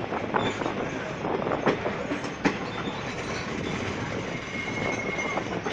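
Passenger train running on the rails: a steady rumble with the wheels clattering over rail joints, two sharp knocks about a second and a half and two and a half seconds in, and a faint thin squeal near the end.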